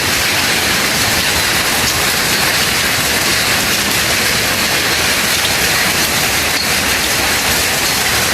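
Heavy rain mixed with hail falling in a steady, dense hiss.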